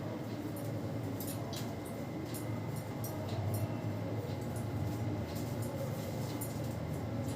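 Head massage: hands rubbing and patting on a person's hair and scalp, making short, crisp, irregular rustles and pats over a steady low hum.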